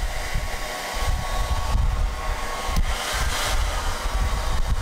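Hand-held hair dryer running on heat, blowing steadily at close range, with a faint steady whine.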